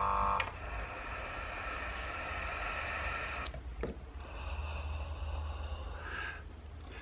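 Breathy hiss of a person inhaling vapour through the silicone whip of a Volcano Hybrid vaporizer while its air pump runs, in two long draws with a short break about three and a half seconds in.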